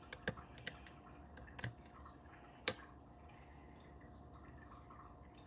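Faint, sharp metallic clicks of a dimple pick and tension tool working the pins of a Mul-T-Lock Interactive lock with spool drivers: about six ticks in the first three seconds, the loudest near the three-second mark, then only a faint steady background.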